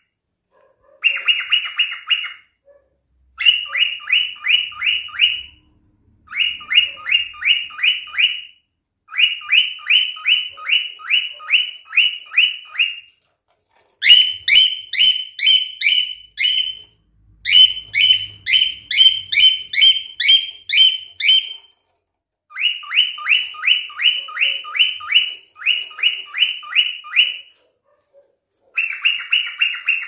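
Cockatiel calling in quick runs of sharp, repeated chirps, about five a second. The runs last a few seconds each, with short pauses between them.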